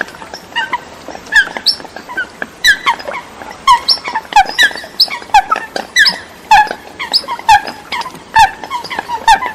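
Eurasian coots calling: short, sharp, downward-slurred notes repeated about twice a second, with several birds overlapping.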